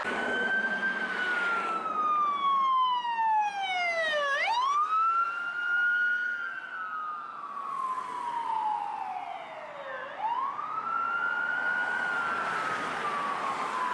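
Ambulance siren on a slow wail: the tone falls for several seconds, sweeps quickly back up, and falls again, turning about twice, over road traffic.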